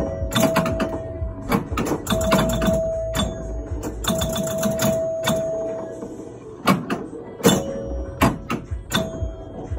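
1970 Gottlieb Aquarius electromechanical pinball machine in play: a busy run of sharp mechanical clacks from the bumpers, relays and score reels as the ball bounces around the playfield. Bell-like chime tones ring out over the clatter several times, each holding for up to about a second and a half.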